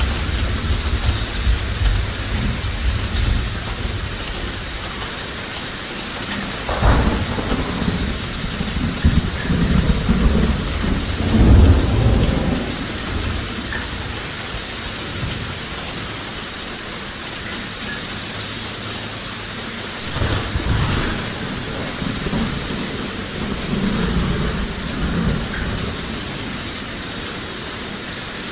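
Steady heavy rain hissing, with thunder: a sharp crack about seven seconds in rolls into a long low rumble that is loudest a few seconds later, and softer rumbles return twice near the end.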